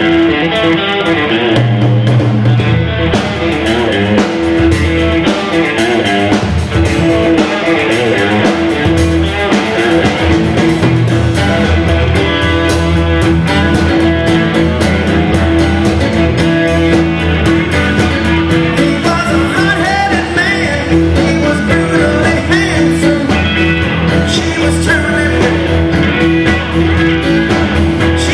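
Live rock band playing, led by a Fender Telecaster electric guitar over bass and drums, with the drums and cymbals filling in fully from about three seconds in. A man's lead vocal comes in toward the end.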